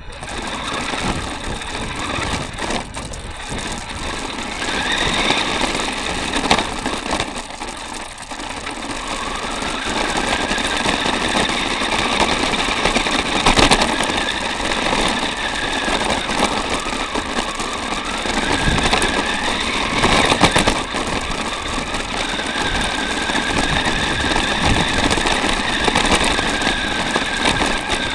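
Small electric 4x4 RC car heard from on board as it drives over rough ground. A rattling, crunching noise from the chassis and tyres runs under a steady motor and gear whine, and the whine rises a few times as the car speeds up. Sharp knocks from bumps come about halfway through and again later.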